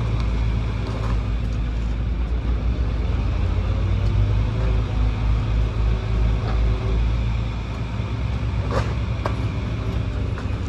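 Excavator's diesel engine running with a steady low rumble that swells and eases in the middle. Two short knocks near the end.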